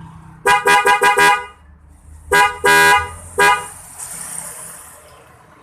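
A pair of Denso waterproof horns on a motorcycle honking together: a quick run of five short toots, then after a pause a short toot, a longer toot and another short one.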